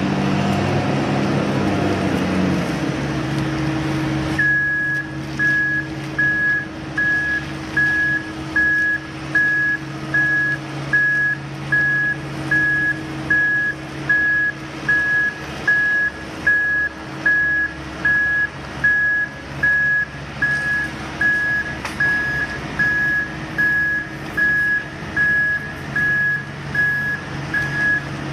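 A heavy road-construction vehicle's diesel engine running steadily. About four seconds in, its reversing alarm starts: a single high beep about once a second, showing the machine is backing up.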